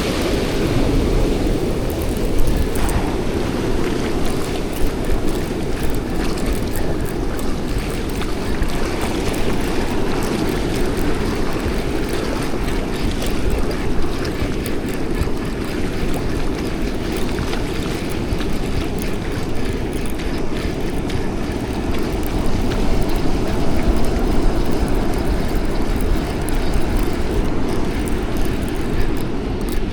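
Ocean surf washing on the beach with wind rumbling on the microphone: a steady, loud noise with no distinct events.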